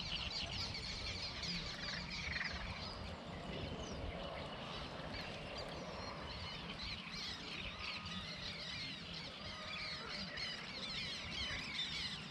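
Outdoor wildlife chorus: many birds calling at once, a steady stream of short chirps and whistles, over a low rumble.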